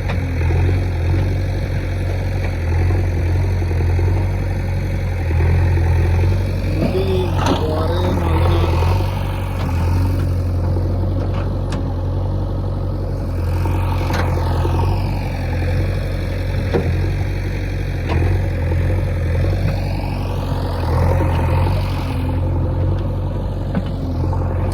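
JCB backhoe loader's diesel engine running with a steady low drone, swelling and easing every few seconds as the machine works and moves about.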